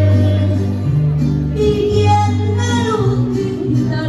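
Live amplified music: a woman singing over guitars, with a bass playing long held notes that change about once a second.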